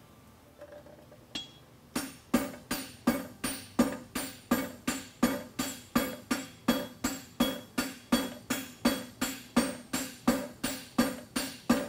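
Hand hammer striking a red-hot bar of 5/8-inch square steel on the anvil as a horseshoe is forged. A steady run of blows begins about two seconds in, roughly two to three a second, each with a short metallic ring.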